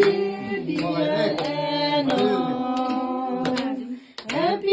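A voice singing a melody, holding some notes for a second or more, with a short break shortly before the end.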